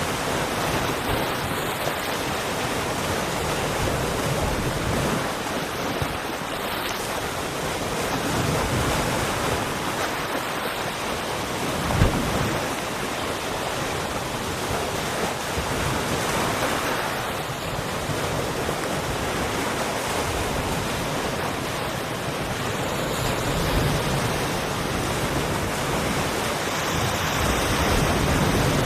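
Sea waves washing on the shore, a steady rushing noise that swells and eases every few seconds, with a brief thump about twelve seconds in.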